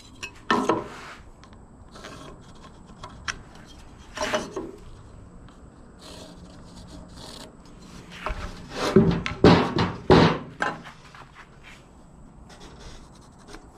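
Pencil rubbing along lumber while boards and a speed square are shifted and knocked about on the work surface, with a cluster of louder knocks and scrapes about nine to ten seconds in.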